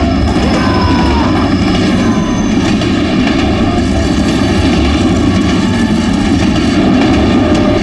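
Loud, steady rumbling roar of a subway train running through a tunnel.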